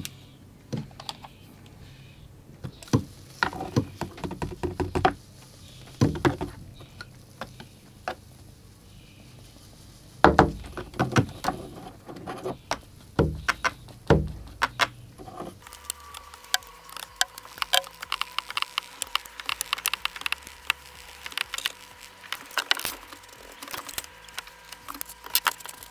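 Handheld static grass applicator being shaken and tapped over the layout, with irregular knocks and rattles. About two-thirds of the way through, a steady high whine comes in with dense rapid ticking as the applicator's charge is switched on and the fibres are sprinkled.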